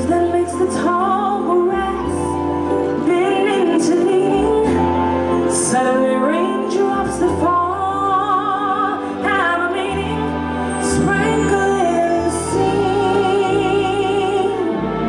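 Background music: a woman singing a slow melody with vibrato over long held bass notes.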